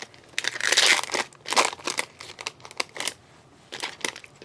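Trading-card pack wrapper crinkling and cards sliding against each other as packs are opened and cards flipped through, in irregular rustling bursts with a short lull a little after three seconds in.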